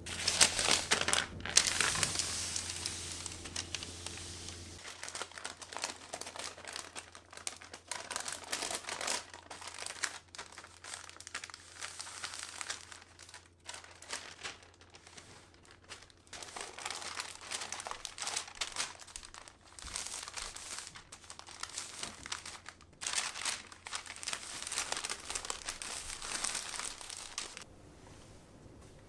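Baking paper crinkling and rustling in irregular bursts as a cream-filled sponge sheet is rolled up in it. The rustling is loudest at the start and again about three-quarters of the way through.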